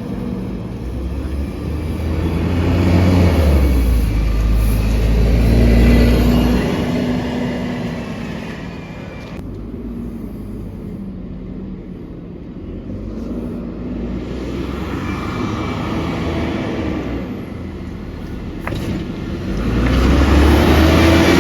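Alexander Dennis Trident double-decker bus's diesel engine heard from inside the bus, pulling hard about three to six seconds in, easing off through the middle, then pulling hard again near the end, with a faint high turbo whistle over it.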